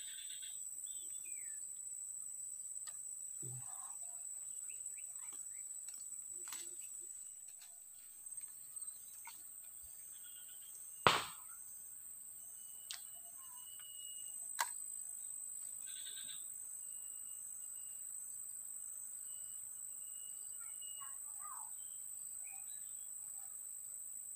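Steady high-pitched drone of insects with scattered bird chirps. A sharp click about eleven seconds in, with two fainter ones a couple of seconds later.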